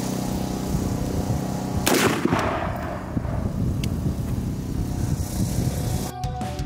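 A single shot from an MK18, a 5.56 rifle with a 10.3-inch barrel, cracking about two seconds in and echoing briefly, over a steady low engine hum.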